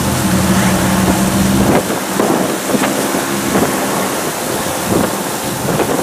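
An engine running with a steady low hum that drops away after about two seconds, comes back briefly, then fades, under wind rumbling on the microphone.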